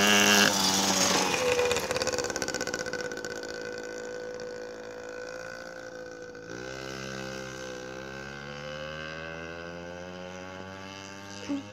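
The 49cc single-cylinder two-stroke engine of a 1989 Yamaha PW50 minibike revving as it passes close by, its pitch dropping, then fading as it rides away, the throttle easing off and picking up again about halfway. A short knock near the end.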